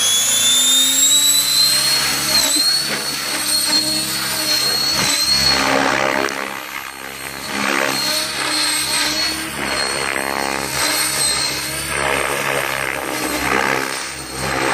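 Electric RC helicopter in flight (TSA 700-e with an Align 800MX brushless motor and 690 mm main blades at about 2040 rpm head speed): a steady high motor and gear whine over the beating rotor blades, growing fainter and louder as it flies back and forth.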